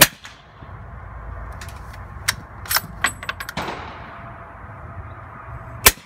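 Two suppressed shots from a Remington 700 .308 bolt-action rifle firing subsonic ammunition, one right at the start and one near the end. A few sharp metallic clicks fall in between.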